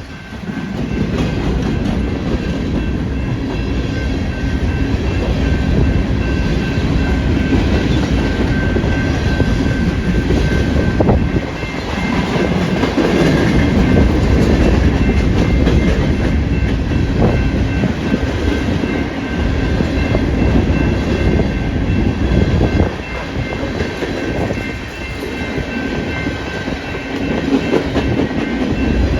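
Loaded grain train of covered hopper cars rolling past, wheels clattering over the rail joints with a heavy rumble, a faint steady high whine running through it. Strong wind buffets the microphone.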